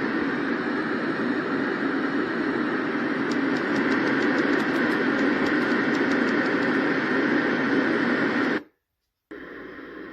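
Sound machine's speaker playing a steady rushing noise sound. About eight and a half seconds in it cuts out, and after a brief silence a quieter hiss begins, as the machine switches to another sound.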